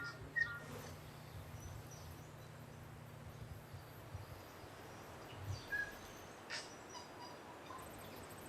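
Quiet outdoor ambience with a few short bird chirps: a quick cluster right at the start, then a couple of single chirps a little past halfway.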